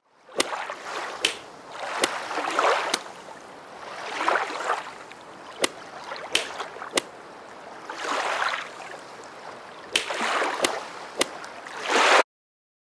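Water sloshing and splashing in repeated swells about every two seconds, with sharp clicks in between; it cuts off suddenly near the end.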